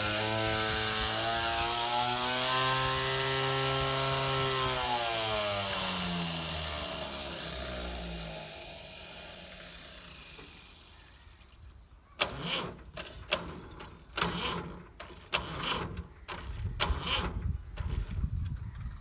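Tractor engine running, its pitch rising briefly and then falling as it fades away over several seconds. From about twelve seconds in comes a run of sharp metallic clicks and knocks of hand tools on the engine.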